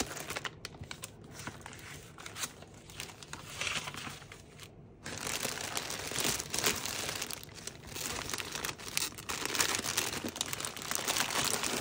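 Packaging crinkling and rustling as items are unwrapped and handled, growing louder about five seconds in.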